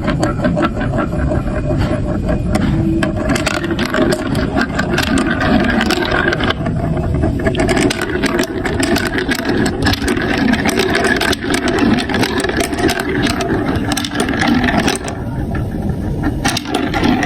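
Many marbles rolling through a plastic block marble run: a continuous rolling rumble with dense, rapid clicking as the marbles knock against the track and each other.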